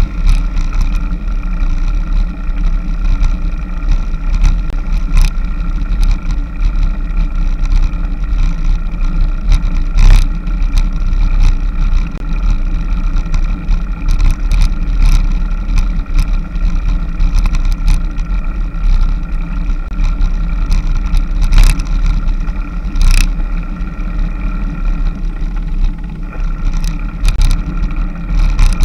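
Steady rumble of wind and road vibration on a camera riding along on a road bicycle, with scattered short knocks and rattles from bumps in the road.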